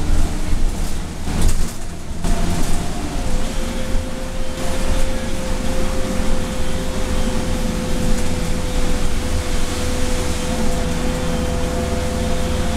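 Inside a 2012 Nova LFS city bus on the move: steady engine rumble and road noise from tyres on a wet street. A steady whine sets in about three seconds in and holds.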